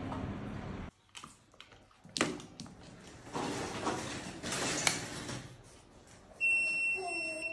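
Clicks and rustles as a plug is pushed into a wall socket and switched on, then a single steady electronic beep lasting about a second near the end: the Faber kitchen chimney signalling that it has power.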